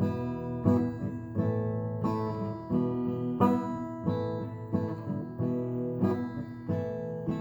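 Acoustic guitar strumming chords at an even pace, about three strums every two seconds, each chord ringing on into the next.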